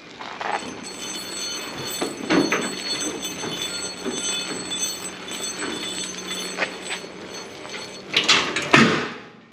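A boat trailer on a hand-pushed trailer dolly rolling across a concrete driveway: a steady rumble of small wheels with metal rattling and a few knocks. Two loud clanks near the end as the dolly handle is worked.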